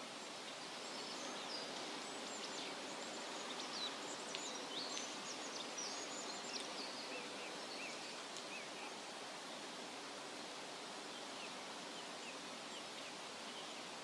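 Small forest stream running steadily over rocks, with songbirds chirping and calling in quick high notes, busiest in the first half and down to a few faint chirps later.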